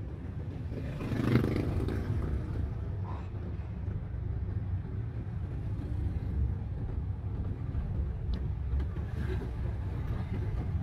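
Steady low rumble of a manual Daihatsu car's engine and tyres heard from inside the cabin while driving slowly, with a brief louder swell about a second in.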